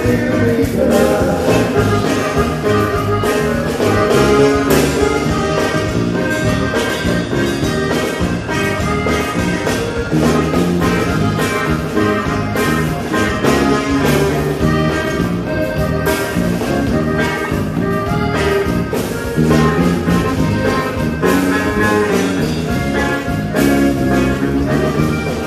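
A cumbia band playing an instrumental passage over a steady beat.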